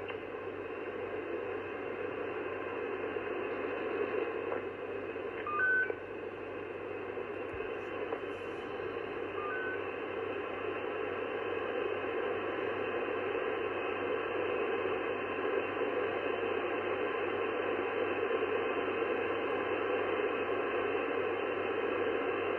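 sBitx transceiver receiving the 11 m band in upper sideband: steady band-noise hiss from its speaker, cut off sharply near 3 kHz by the receive filter. Short rising two-note beeps come about six seconds in and, fainter, about ten seconds in.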